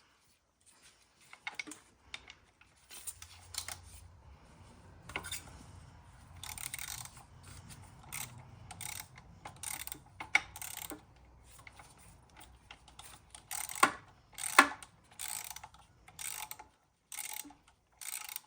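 Socket ratchet clicking in short repeated strokes while loosening a motorcycle's transmission oil drain plug with a 13 mm socket. Two sharper metallic knocks come about 14 seconds in.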